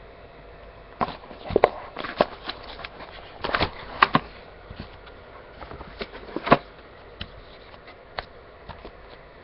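Hands handling and opening a hockey trading-card mini box. Irregular clicks, taps and short crinkles of cardboard and packaging come thickest between about one and seven seconds in, then thin out to a few ticks.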